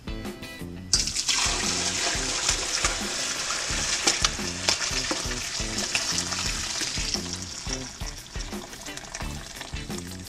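Chicken stock poured from a pot through a conical metal strainer into a stockpot: a steady splashing pour that starts about a second in and eases off near the end.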